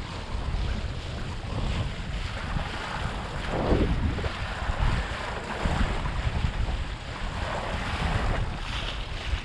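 Water rushing and splashing against a windsurf board sailing through chop, under a steady rumble of wind on the microphone, with a louder splash about three and a half seconds in.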